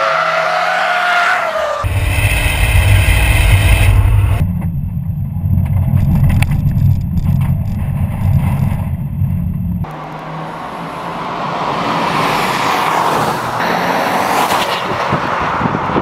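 2015 Subaru WRX STI's turbocharged flat-four engine running hard on track. It is heard first from trackside, then from about two seconds in as a loud, deep rumble from inside the cabin under turbo boost. From about ten seconds in there is a rising hiss of tyres and engine as the car comes past at speed.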